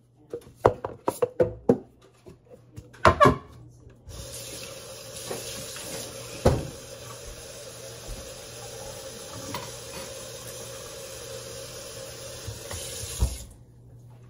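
A few sharp knocks and clatters as a cup is taken from a kitchen cabinet, then a kitchen faucet runs steadily into a plastic cup for about ten seconds, filling it with water, and is shut off suddenly near the end.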